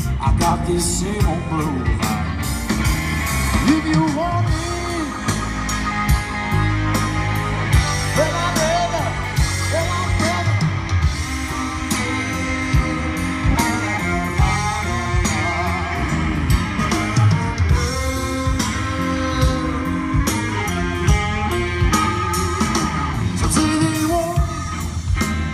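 Live band playing through an RCF line-array PA with subwoofers: a singer over guitar, bass and drums.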